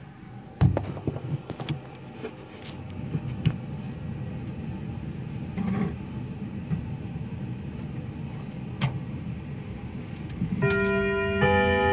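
Knocks, clicks and rattling from hands working inside a wooden floor clock's case. About ten and a half seconds in, the clock's chime rods begin ringing a melody of long, overlapping notes.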